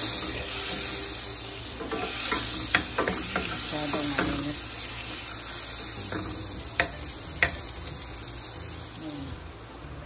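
Butter melting and sizzling in a stainless steel skillet over medium heat, the sizzle easing a little toward the end. A wooden spatula scrapes and knocks against the pan several times as it pushes the block of butter around.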